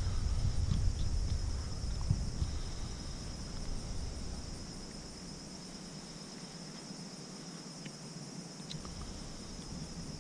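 A steady, high-pitched chorus of insects chirring, with a low rumble underneath that fades out about halfway through.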